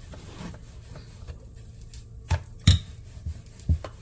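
Short wooden knocks and thuds from a rolling pin working roti dough on a wooden rolling board, starting about halfway through at roughly two a second, the loudest a little after the middle.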